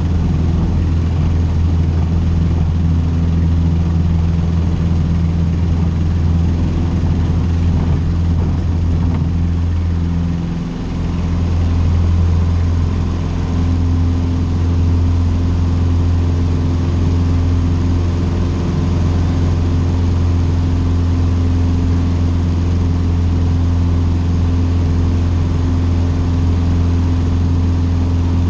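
Cessna 150's Continental O-200 four-cylinder piston engine running steadily with a low drone, dipping briefly in level and pitch about eleven seconds in before settling again.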